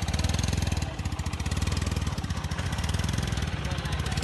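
Helicopter-replica car driving slowly away, making a rapid, steady mechanical pulsing like a small engine running.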